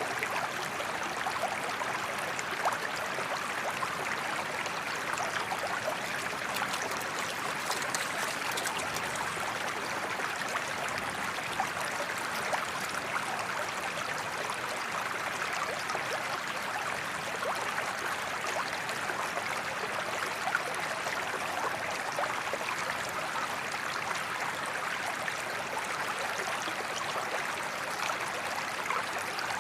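Forest creek flowing steadily, a continuous babble of running water with many small, quick splashes and trickles.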